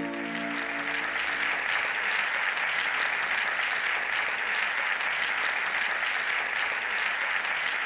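An audience applauding steadily, a dense even clapping. The last sustained notes of a chiming intro tune fade out in the first second or so.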